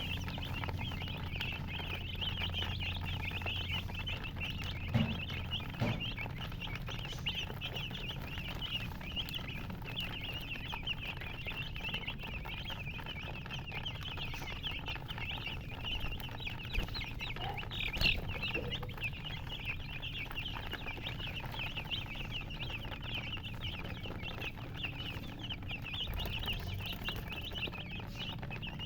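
A brood of baby chicks peeping continuously: many overlapping short, high chirps, with a few brief knocks about five seconds in and again past the middle.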